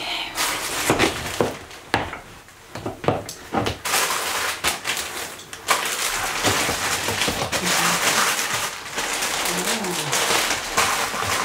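Plastic mailer packaging crinkling and rustling as it is handled, mixed with the creak and rub of leather clothing. In the first few seconds there are sharp clicks and knocks from heeled boots stepping on a wooden floor.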